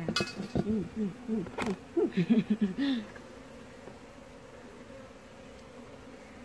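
Honey bees buzzing around a honeycomb. The buzz is loud and wavering in pitch for the first three seconds, with a couple of sharp clicks, then drops to a faint steady hum.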